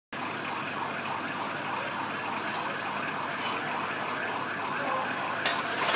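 Fire engines running in the street: a steady mechanical hum and hiss, with a sharp clank near the end.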